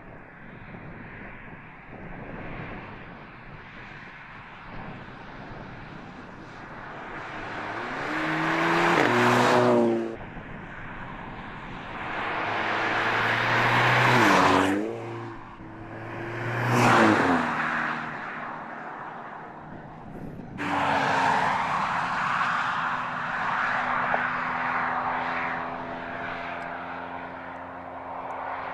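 Mercedes-AMG CLA 45 Shooting Brake's turbocharged 2.0-litre four-cylinder engine and exhaust as the car drives past at speed several times. Each pass swells to a loud peak and drops in pitch as it goes by, and the sound cuts off sharply between shots.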